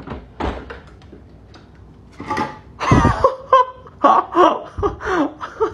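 A few dull thuds, as of something bumping a door, then a high-pitched voice in short cries and laughs, each rising and falling in pitch.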